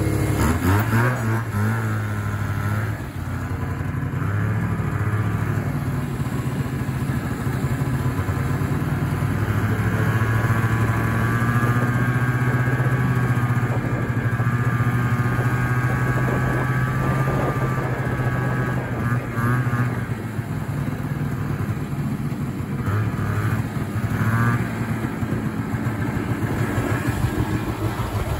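Vintage 1976 Yamaha GS340 snowmobile's two-stroke engine running under throttle, rising in pitch near the start and then holding a fairly steady pitch.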